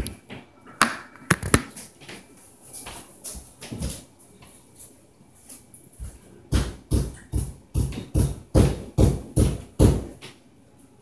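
Heavy footsteps stomping on the floor of the apartment above, heard through the ceiling as deep thumps. A few scattered thumps come in the first seconds, then past the middle a steady run of about nine, two or three a second.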